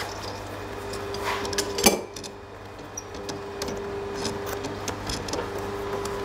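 Metal clinks and scrapes of a wrench being worked onto a hot steel bar held in a bench vice, where it keeps slipping instead of gripping, with a louder clank about two seconds in.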